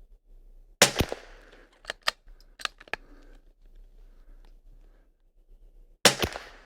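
Two .22LR rifle shots from a Kimber .22, one about a second in and one near the end, each a sharp crack followed closely by a second crack and a short echo. Between them come a few quieter sharp clicks, the action being worked for the next round.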